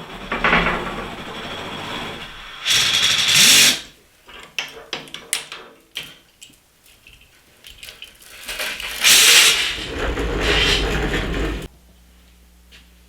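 A power tool working on steel, run in two loud bursts of about one and three seconds, with a scatter of sharp metallic clicks and knocks between them.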